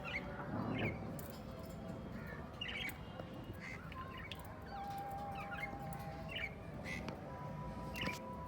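Ringneck parrots (rose-ringed parakeets) calling: a series of short, high calls, about one a second.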